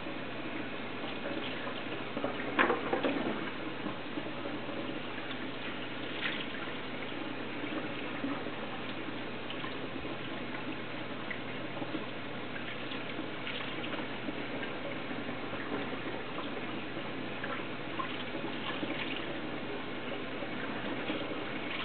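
Kitchen faucet running onto a canister filter's foam pad as it is rinsed by hand, water splashing into the container below. There is a louder splash about two and a half seconds in.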